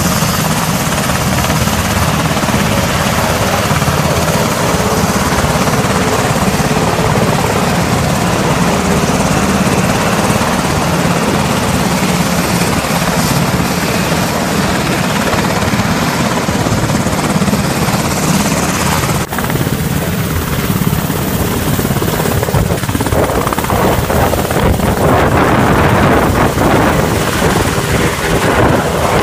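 Sikorsky H-60 helicopters' rotors and turbines running loud and steady as they take off and fly. First a Black Hawk passes overhead; then, after an abrupt cut about two-thirds of the way through, a Coast Guard Jayhawk is heard lifting off close by.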